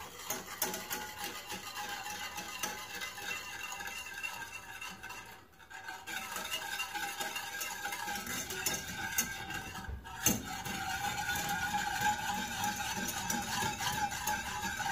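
A wire whisk stirring and clicking against the inside of an aluminium saucepan, mixing milk and sugar into a syrup until the sugar dissolves, with background music.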